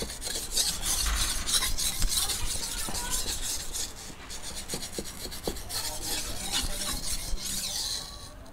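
Vanadis 8 steel golok blade stroked back and forth on a Tamiyang natural whetstone of about 400 grit: continuous scraping of steel on wet stone in a thick slurry.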